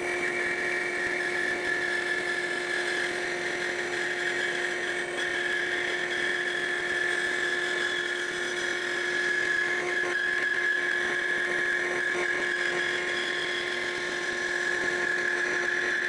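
Bandsaw running and cutting through a 4-inch-wide poplar board, with the dust collection vacuum drawing through the nozzle beside the blade. It is a steady machine hum with a high whine held at an even level.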